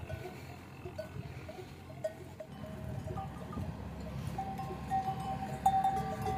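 Livestock bells clinking in short, irregular rings over a low rustle of grazing animals; about two-thirds in the ringing turns into a steadier, higher tone that holds on with brief breaks.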